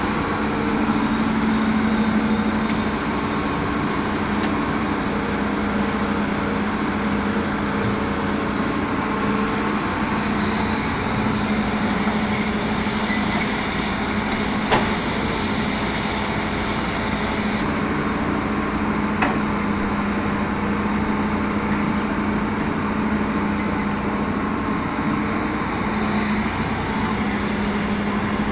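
Hitachi excavator's diesel engine running steadily while loading soil, with two brief sharp knocks about halfway through.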